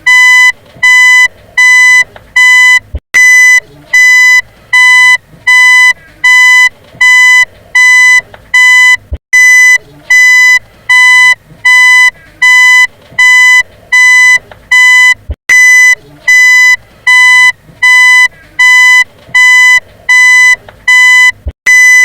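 Car reversing beeper sounding a steady run of identical electronic beeps, about four every three seconds, each a short pitched tone with brief gaps between. A faint click comes about every six seconds.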